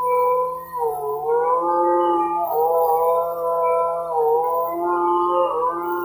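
Background music: sustained chords whose notes glide up and down together every second or so.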